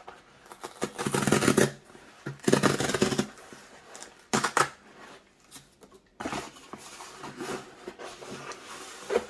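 Packaging being handled and opened by hand: several short bursts of rustling and scraping, with quieter rustling in the second half.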